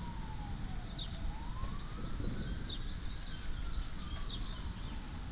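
A siren wailing: one tone sliding down, then up over about two seconds, then down again in a slow cycle, with birds chirping several times over it.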